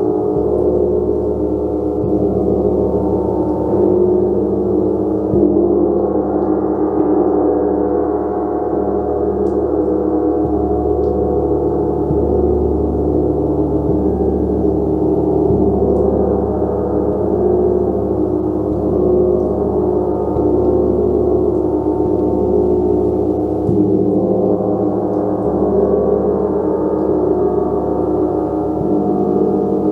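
A gong played continuously with soft, repeated mallet strokes, building a steady, dense wash of many overlapping ringing tones.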